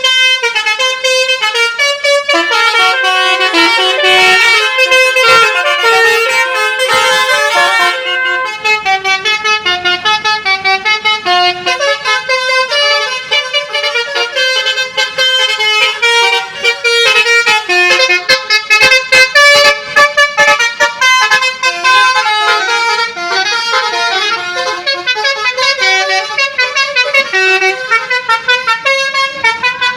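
Basuri 'telolet' bus horn playing a fast tune, a continuous run of short horn notes that change pitch several times a second.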